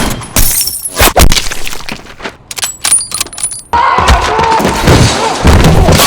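Movie action sound effects: a rapid run of hard hits and crashes, then, about four seconds in, a sudden switch to a dense, continuous din.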